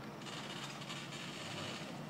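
Small forklift working, its engine a steady low hum under a mechanical rattling and clattering that starts about a quarter second in.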